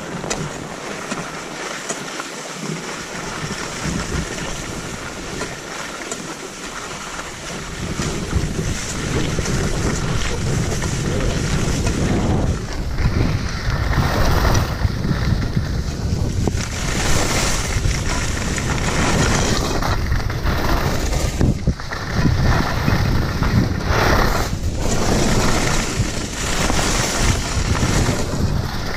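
Wind buffeting the microphone while skiing downhill, mixed with the hiss of skis sliding on snow. The rush grows louder and deeper about eight seconds in and keeps going with brief dips.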